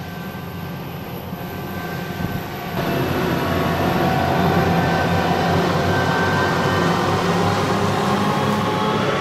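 Krone Big X forage harvester running under load while chopping rye: a steady engine and machinery drone, louder from about three seconds in as it passes close.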